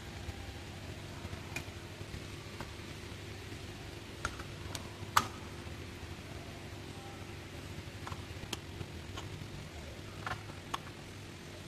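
Scattered sharp metal clicks and taps of a wrench and the oil filter housing cap being handled and fitted under a car, the loudest about five seconds in, over a steady low hum.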